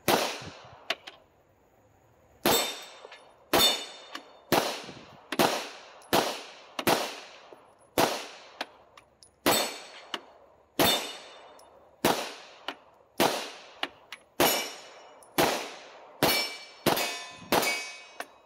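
Glock 17 9mm pistol fired unsuppressed through a magazine, about seventeen shots at roughly one a second that come faster near the end. Each shot is followed by the ringing ding of the bullet striking a steel swinger target.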